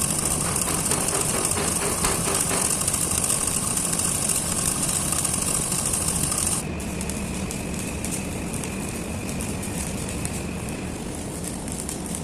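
Arc welding sizzling and crackling over a steadily running engine; the sizzle drops in brightness about six and a half seconds in, and crackling continues.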